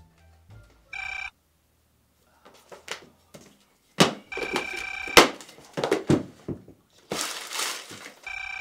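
A telephone ringing with a steady electronic tone, first briefly about a second in and then in two longer rings. Between the rings come a couple of sharp knocks and the rustle and crumple of paper being rummaged through.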